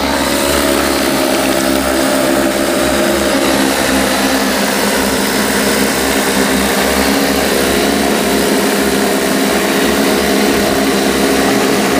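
Large crop-spraying multirotor drone with 30-inch propellers hovering, its rotors giving a steady, loud, layered drone with slight wavers in pitch as the craft holds its position.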